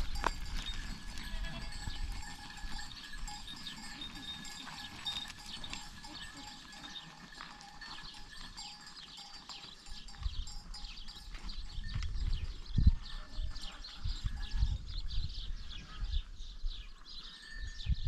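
Bells on a moving herd of goats and donkeys, clanking and ringing steadily with many small jingles; low bumps and rumbles join in during the second half.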